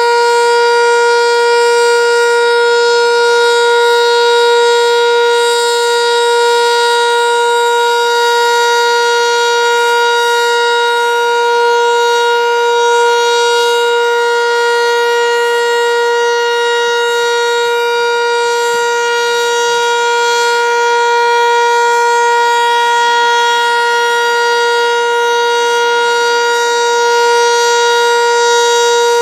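Sentry 3V8-H tornado siren sounding a loud, steady wail at full speed, holding one pitch with its overtones and only slight swells in loudness, during a siren test.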